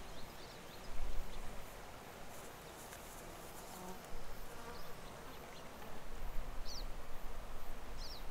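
Outdoor summer ambience by a river: insects buzzing, with a couple of short, high, falling bird chirps near the end. Low rumbling gusts come about a second in and again toward the end.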